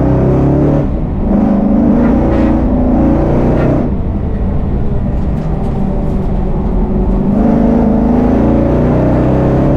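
1000-horsepower VF Commodore race car engine and exhaust under hard acceleration, heard from inside the car: the pitch climbs for about three seconds, drops sharply near four seconds as the driver lifts or shifts, runs lower and rougher, then climbs again from about seven and a half seconds. The exhaust is loud enough to exceed a 95 dB track noise limit.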